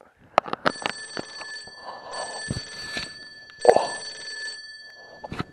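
Bright ringing bell-like tones, several high pitches sounding together, in three bursts of about a second each, mixed with sharp clicks and knocks.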